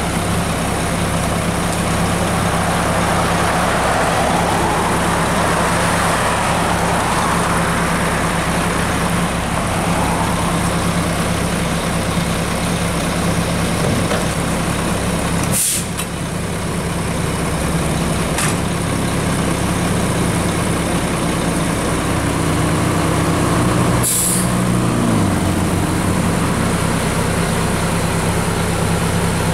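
Diesel engine of a rear-loader garbage truck running steadily at the curb, with short sharp air hisses about halfway and again about three quarters through. Just before the second hiss the engine pitch rises for a couple of seconds and then glides back down.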